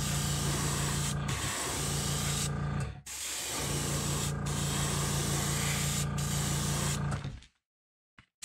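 Airbrush spraying burnt umber paint in long passes. Its hiss breaks off briefly several times as the trigger is eased, over the steady hum of the air compressor. All of it cuts off suddenly about two thirds of the way through, and there is a short silence near the end.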